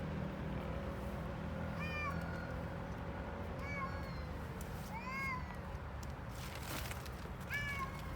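A stray cat meowing four times, short rising-and-falling meows about a second and a half apart, over a steady low background rumble.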